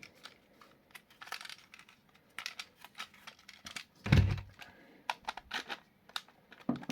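Foam darts being loaded into a plastic blaster magazine: a run of light plastic clicks and rustles, with one louder knock about four seconds in.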